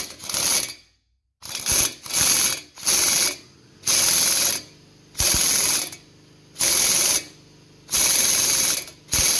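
Impact wrench hammering in short bursts, roughly one a second, then running without a break near the end. It is driving a puller's screw against a rust-seized piston, and the screw is tight.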